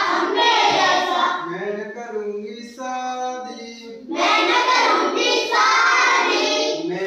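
A group of children singing a Hindi action song together. About two seconds in the group drops out and one voice sings a line alone, then the chorus comes back in loudly about four seconds in.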